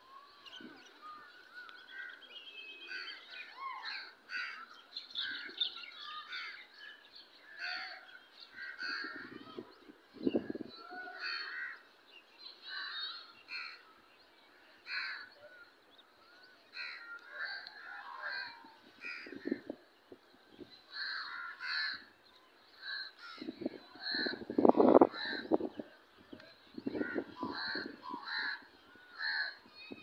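Small birds chirping in many short, high calls, joined in the last several seconds by crows cawing loudly and repeatedly.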